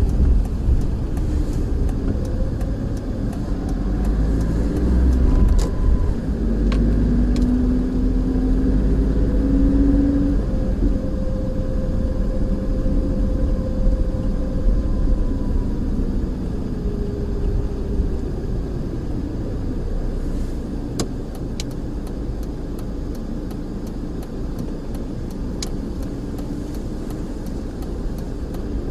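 Car driving, with a steady low engine and road rumble. Over the first half a hum climbs in pitch, then eases off and drops.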